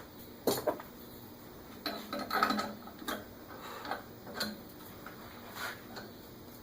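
Scattered light knocks and clinks, about half a dozen spread out irregularly, from tools and small objects being handled in a woodshop.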